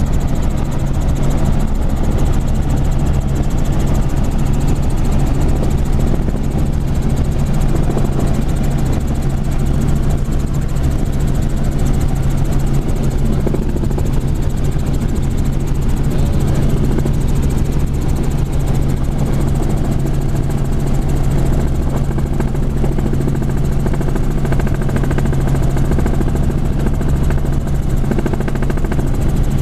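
Helicopter in flight, heard from on board: the rotor and engine make a loud, steady drone with a constant low hum.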